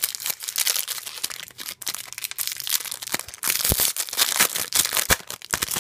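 Foil Panini trading-card packet crinkling and tearing as it is ripped open by hand, a dense crackle with a few sharper snaps in the second half.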